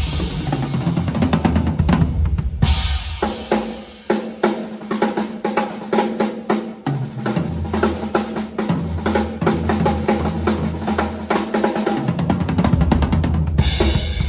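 Drum kit sound check on a TAMA Starclassic Bubinga kit with MEINL cymbals: rapid strokes across bass drum, snare and toms, with cymbal crashes near the start and near the end.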